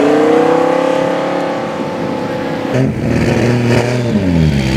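Lamborghini Huracán's V10 accelerating away, its engine note climbing and then holding steady. After a cut, a Toyota Supra's inline-six engine runs at a lower note that dips and then rises again as it pulls off near the end.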